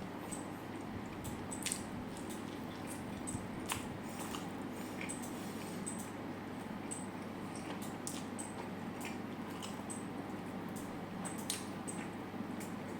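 Close-miked eating: soft chewing with small wet mouth clicks and squishes scattered through, over a steady background hiss.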